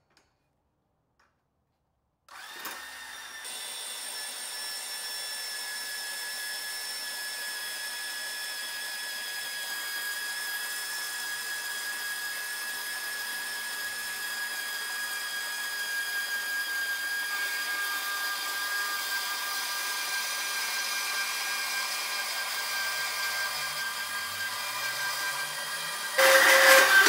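Milwaukee handheld band saw starting about two seconds in and running steadily as its blade cuts through slotted steel strut channel, with several steady whining tones. It gets much louder for about a second near the end as the cut finishes.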